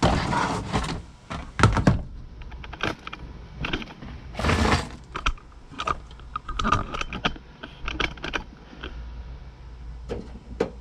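Hands unclipping the connections from a liftgate latch: a run of plastic clicks, rattles and scrapes, with louder scraping in the first second and again about four seconds in, and sharp clicks near two seconds.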